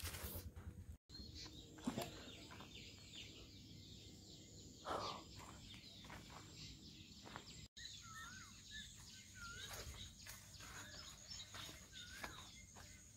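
Faint outdoor ambience of small birds chirping, with short curly calls clustered around the middle, and scattered footsteps and leaf rustling from someone walking over dry ground. The sound drops out completely twice, briefly.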